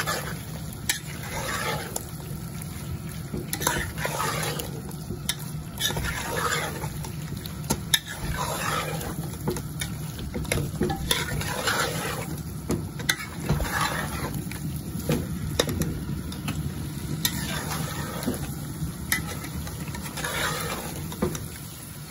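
A metal spoon stirring and scraping spiced meat and chickpeas in a metal pot in repeated strokes, with sharp clinks against the pot, as the mixture sizzles in the dried-down pan while the spices are fried in.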